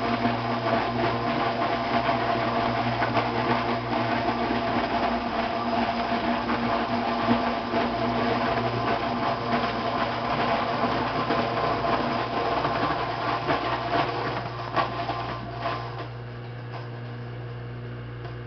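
Zambelli Mulimix electric fruit grinder (scratter) chopping apples to pulp: a dense grinding noise full of small cracks over the steady hum of its motor. About sixteen seconds in the grinding dies away and the motor runs on empty with a steady hum.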